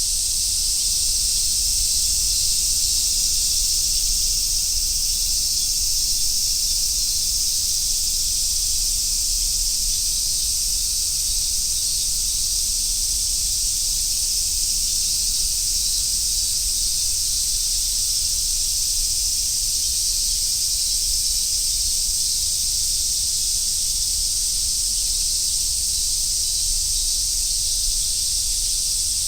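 Chorus of cicadas calling together in one steady, dense, high-pitched shrill, with no breaks or pulses, over a faint low rumble.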